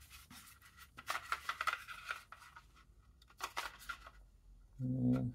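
Plastic housings of high-voltage contactors handled and rubbed together in the hands, with scraping and small clicks, then a few sharper clicks. A short low 'hmm' hum near the end.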